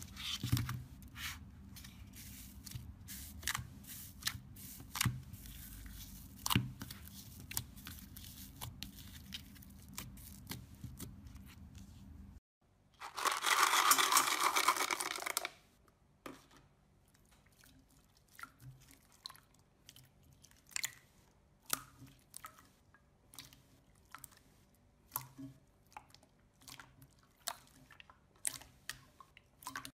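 Slime being handled, with sticky clicks and pops over a low hum. About halfway through comes a loud rustling patter of a couple of seconds as foam beads are poured into clear slime. After that the bead-filled slime is kneaded, giving scattered soft clicks and squelchy pops.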